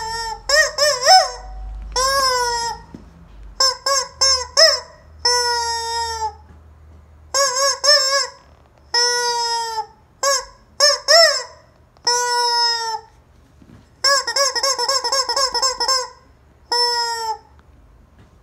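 Rubber squeaky chicken toy squealing again and again: about a dozen honking squeals, some short and clipped, others held for a second or so and dropping in pitch at the end, with one long wavering squeal in the later part.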